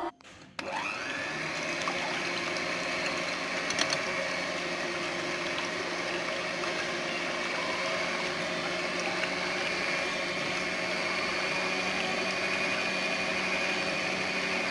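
Electric hand mixer running at its lowest speed, its beaters whisking raw eggs in a glass bowl. The motor starts about half a second in, then runs steadily with a hum and a high whine.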